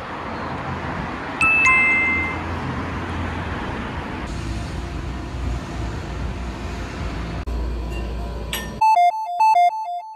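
Steady outdoor noise with a low rumble. About a second and a half in comes a single descending two-tone ding-dong chime. Near the end the noise cuts off and a quick, bright chiming jingle of two alternating notes plays, a sound-effect stinger that fades out.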